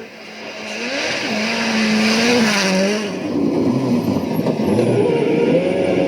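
Rally car engine revving hard under acceleration. Its pitch climbs, holds, then drops about three seconds in, followed by a rougher stretch of engine and tyre noise on the snow-covered stage.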